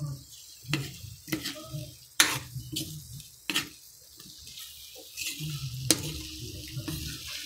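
A utensil stirring and scraping in a frying pan, with several sharp clinks against the pan, the loudest about two seconds in, over the sizzle of the sauce as it cooks down with added cornstarch to thicken. The sizzle grows denser in the second half.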